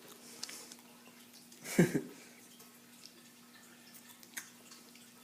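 A person chewing crunchy insect larvae close to the microphone: faint crunches and clicks, with one louder sound about two seconds in, over a faint steady hum.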